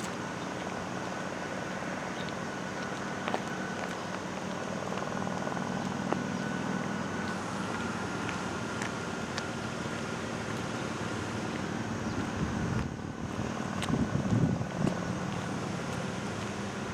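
Outdoor background noise: a steady rumble of wind and distant traffic with a faint, steady high-pitched tone. About fourteen seconds in, a gust buffets the microphone.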